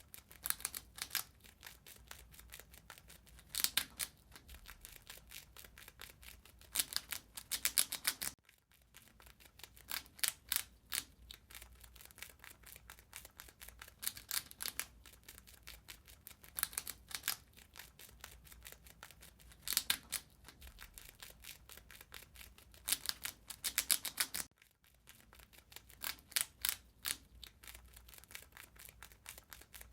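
A rat gnawing and chewing: rapid crisp clicks in loud bursts every few seconds, with softer nibbling between them and two brief pauses.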